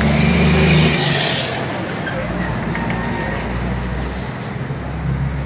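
Motorcycle engines running, loudest in the first second or so, then settling into a steady low drone.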